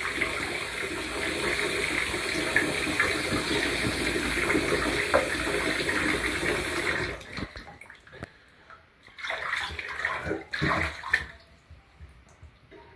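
Bathtub tap running into a partly filled tub as a steady rush of water, shut off about seven seconds in. After that come scattered light splashes and sloshes of the bathwater.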